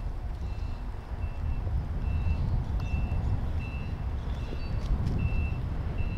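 High electronic warning beeps at one steady pitch, about three every two seconds, over a continuous low rumble.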